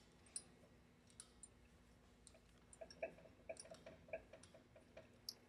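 Near silence, with faint, irregular small clicks and ticks scattered through it, most of them bunched together about three to four seconds in.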